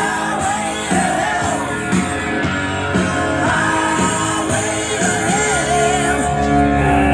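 A rock song with singing, played loud through a Honda Valkyrie's custom motorcycle audio system: Ground Zero 10- and 8-inch subwoofers in the trunk and Beyma speakers with tweeters in the front fairing.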